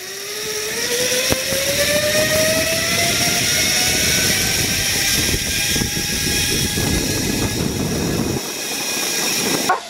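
Zip line trolley's pulleys whirring along the steel cable in a whine that rises in pitch as the rider picks up speed, then holds steady. Wind rushes on the microphone, its low rumble dropping away near the end.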